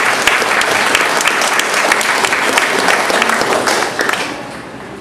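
Congregation applauding, many people clapping together; the applause fades away about four seconds in.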